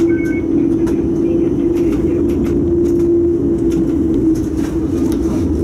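Siemens Combino tram running along the track, heard from inside: a steady motor whine over a low rumble, with irregular clicks and clatter from the wheels on the rails.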